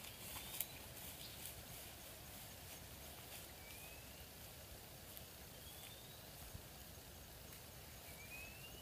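Faint outdoor ambience in which a small bird gives a short rising chirp about every two to three seconds, with a few light taps near the start.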